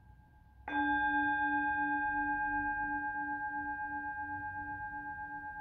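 Tibetan singing bowl struck once, a little under a second in, ringing on and slowly fading with a steady wavering beat of about four pulses a second.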